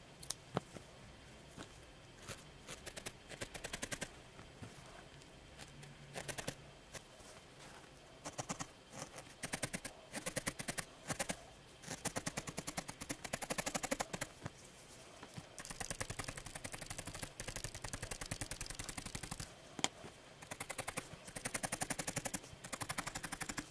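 A felting needle stabbing rapidly into a small ball of wool: fast runs of small clicks, many a second, in bursts with short pauses between them.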